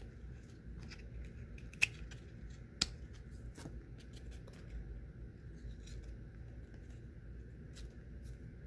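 Glossy trading cards being shuffled by hand, one slid behind another, with scattered soft clicks and snaps of card edges and two sharper snaps about two and three seconds in. A faint steady high hum runs underneath.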